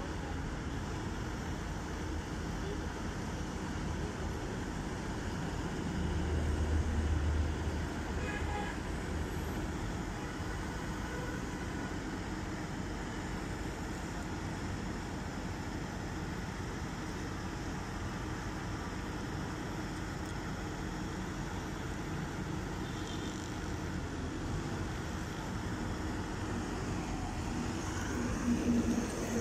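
Sany SY215C crawler excavator's diesel engine running steadily as the machine tracks down off a lowbed trailer, with a louder low rumble about six to seven seconds in.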